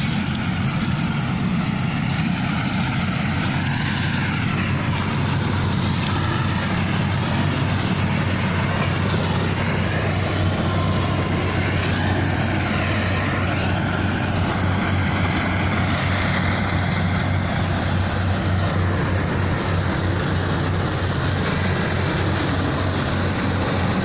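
Rice combine harvester running steadily, with a constant low engine drone.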